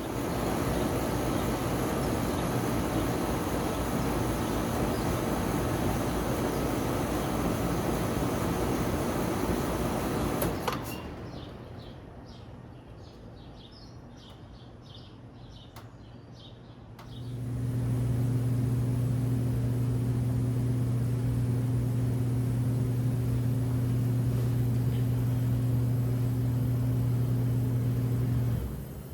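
Kelvinator (Nordyne) straight-cool central air system running on cooling: a steady rush of air for about ten seconds, then quieter with faint chirps, then a steady low electrical hum with a fan rush that cuts off near the end.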